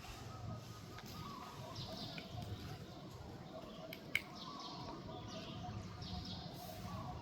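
Faint, high chirping calls that repeat every second or so, with one sharp click about four seconds in.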